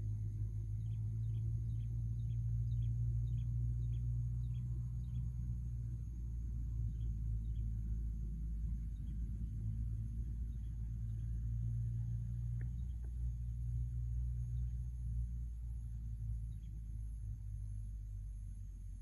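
Steady low rumble with a constant high-pitched insect drone above it. A quick series of short high chirps comes near the start, and a single faint click about two-thirds of the way through.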